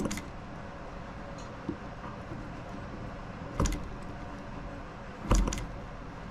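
Hands handling a small brass model engine that is not running: three sharp double clicks, each with a dull thump, near the start, about three and a half seconds in and about five and a half seconds in, over a faint steady hum.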